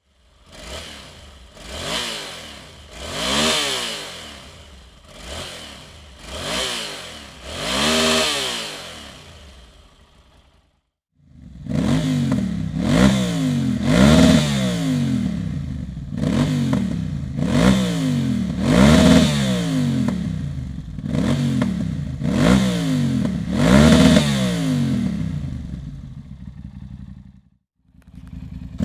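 Yamaha TDM 850's parallel-twin engine revved again and again through a Dominator aftermarket exhaust, each rev rising and falling in pitch. It breaks off about eleven seconds in, then a second, louder run of repeated revs follows.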